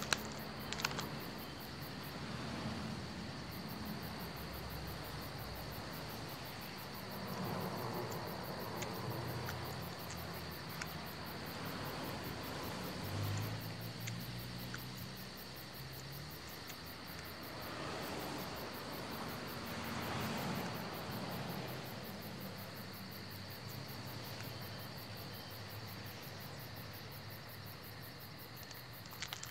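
Crickets chirring steadily at night, one constant high trill, over a low hum, with two soft swells of broader noise, about a quarter and two thirds of the way through.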